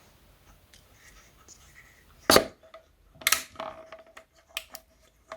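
Plastic clicks and knocks from handling a balloon and a hand pump: one sharp click a little over two seconds in, then a run of smaller clicks.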